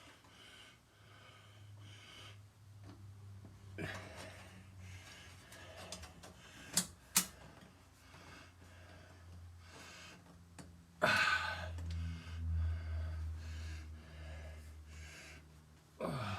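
Quiet workshop handling sounds over a steady low hum: two sharp clicks about seven seconds in, and louder rustling or scraping near four seconds, around eleven seconds and again at the end.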